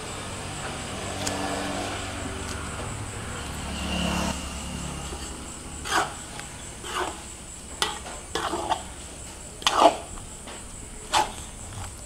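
A steady low hum through the first half. Then, from about six seconds in, a cooking utensil scrapes and knocks in a pot in irregular strokes, the loudest near the end.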